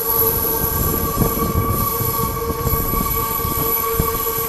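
Hankyu 9000 series electric train rolling slowly over curved track and points, with a steady high-pitched wheel squeal over a low rumble and irregular knocks of wheels over rail joints.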